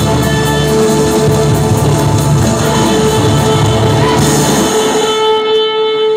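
Live band playing a rock-style pop song led by electric guitar. About four and a half seconds in the low end drops out, leaving one long held note as the song finishes.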